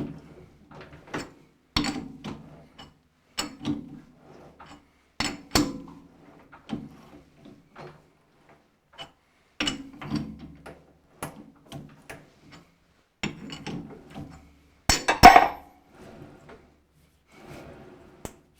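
Irregular metal clicks and knocks, one every second or so, from a thread being tapped by hand with a tap and tap handle on a metal lathe, with a louder cluster of knocks about fifteen seconds in.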